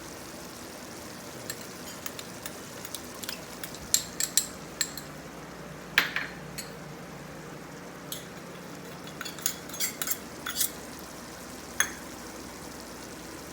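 Onion, tomato and spice masala with yogurt sizzling in oil in a karahi while a spoon stirs it, knocking and scraping against the pan in irregular clicks, the sharpest about four and six seconds in.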